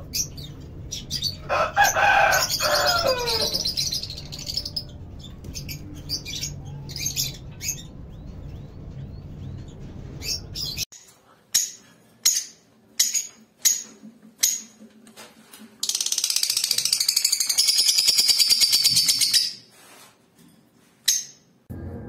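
Small caged parrots calling: a burst of loud squawking calls about two seconds in, then scattered soft chirps over a low hum. Later comes a series of sharp single chirps, then a dense high-pitched rattling that lasts about four seconds.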